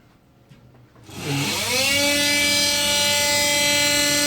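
Faulty extractor fan starting up: about a second in it spins up with a rising whine, then holds a loud, steady, multi-pitched wail, a wailing banshee of a fan.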